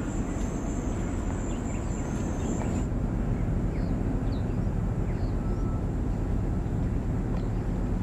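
Wind buffeting the microphone: a steady, rough low rumble with a few faint high chirps above it.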